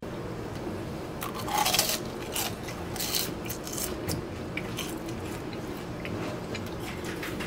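Close-up eating sounds: crunchy bites and chewing, with metal chopsticks clicking against a bowl, over a steady background hum.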